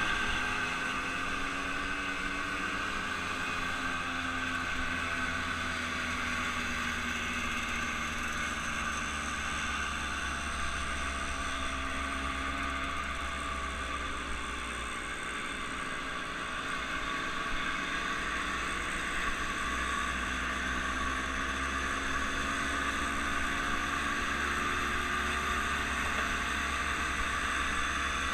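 Motorboat engine running steadily: a continuous low drone whose pitch wavers slowly.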